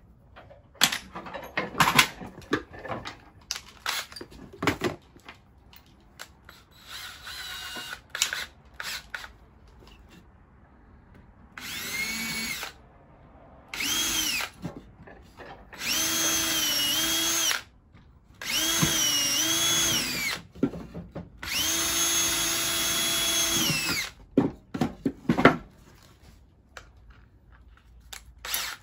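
Cordless DeWalt drill pre-drilling pilot holes in a 2x4 block: five runs of one to two seconds each, the motor whine rising as it spins up, then holding steady. Before the first run come clicks and knocks of bits and tools being handled.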